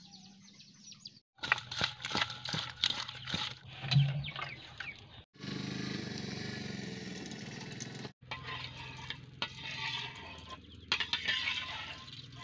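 Cooking-prep handling noises in short edited segments. First come clicks and scrapes of a spoon mixing spices into raw fish pieces in a steel bowl. Then a steady hiss lasting about three seconds as oil goes into the iron kadai, followed by more clicks of a metal spatula against the pan.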